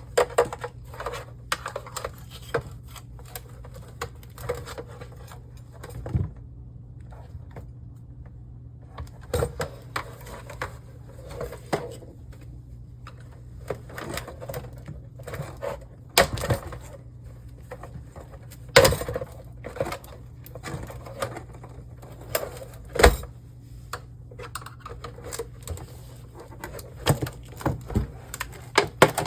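Plastic and metal monitor parts being handled and pried apart: irregular clicks, taps and rattles, with a few louder knocks, over a steady low hum.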